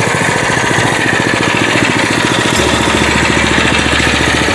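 MB200 mini bike's single-cylinder four-stroke engine running steadily, with an even, rapid firing beat.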